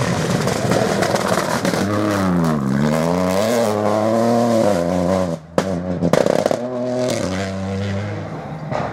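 Rally car engine revving hard on a gravel stage: the pitch drops and climbs again as the revs fall and rise through gear changes. About five and a half seconds in the sound cuts out briefly, then comes back with a run of sharp cracks over the engine.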